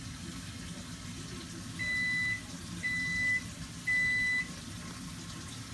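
Three evenly spaced electronic beeps on one steady high tone, each about half a second long and about a second apart, over a steady low rumbling noise.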